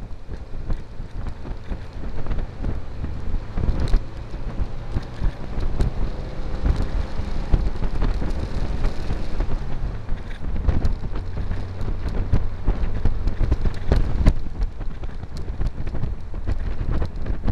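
Wind buffeting and rumbling on a small camera's microphone in an open-top buggy on the move, with crackling gusts throughout and the buggy's engine running underneath.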